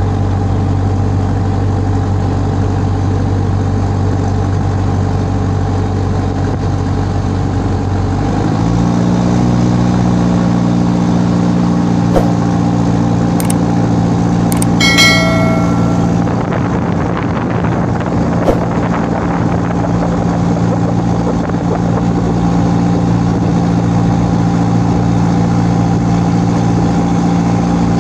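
Car engine powering a wooden jukung riverboat, running steadily at low revs, then revving up about a third of the way in and holding a higher, steady pitch. A few clicks and a short chime sound around the middle.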